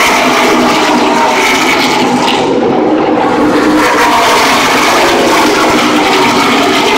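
Field of race trucks running at speed on the oval, a loud, steady roar of many engines blended together.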